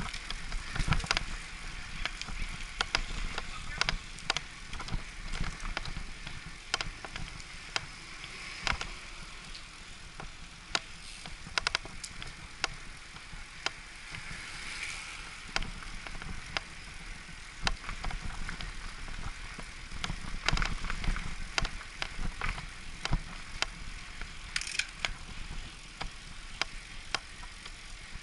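Riding a road bicycle on a paved lane: steady tyre and road rumble with some wind hiss, broken by frequent irregular sharp clicks and rattles.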